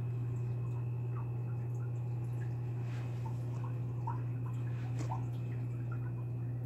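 Aquarium filter running: a steady low hum, with small drips of water plipping now and then.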